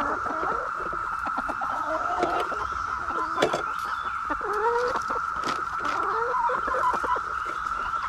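Hens clucking in short, bending calls as they feed, with scattered short taps of pecking. Behind them a Brood X periodical cicada chorus drones steadily on one high pitch.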